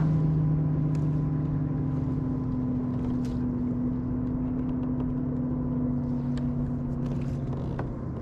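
Motorboat engine droning steadily, its two low tones slowly shifting in pitch as it fades a little, with a few faint clicks.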